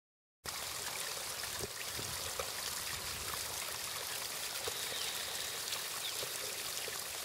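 Water running and trickling over a natural stone garden fountain, a steady splashing flow that starts abruptly about half a second in.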